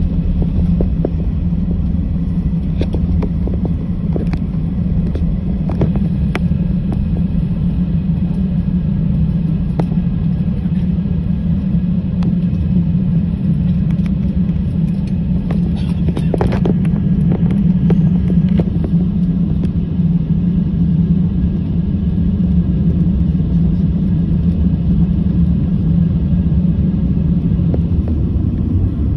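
Airliner cabin noise while taxiing: a steady low rumble and drone from the jet engines and the wheels rolling on the taxiway, heard from inside the cabin. Faint clicks and rattles come and go, one a little louder about sixteen seconds in.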